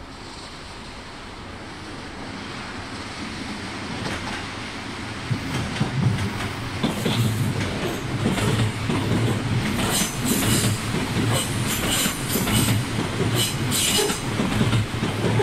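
Odakyu 4000 series electric train approaching and passing close by, its running noise building over the first five seconds. From about ten seconds in come the paired clicks of its wheels over the rail joints.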